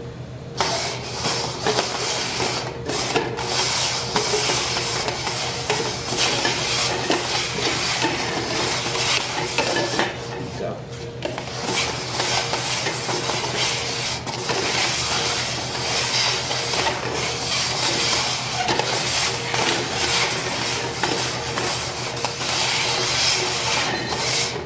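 Red plastic party cups slid and shuffled fast across a wooden tabletop: continuous scraping of plastic on wood with many small knocks, easing briefly about ten seconds in.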